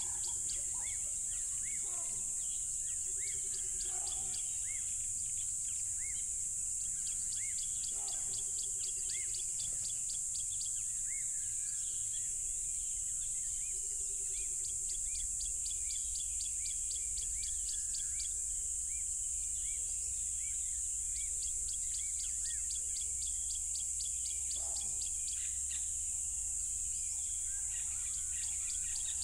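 Loud, unbroken chorus of crickets, a steady high-pitched shrill, with a faster pulsing chirp running beneath it. Short bird chirps and a few lower calls come in now and then.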